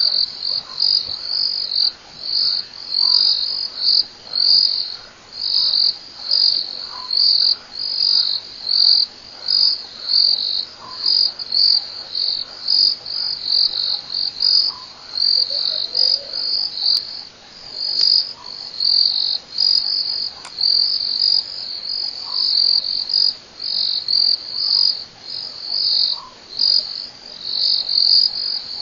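Night insects, crickets by their sound, chirping in a steady, pulsing high chorus, with a faint short low note repeating about every four seconds.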